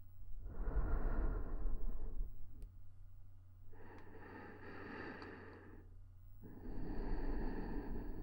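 A woman's slow breaths close to a KU100 binaural dummy-head microphone in ASMR, three long airy breaths with short pauses between them.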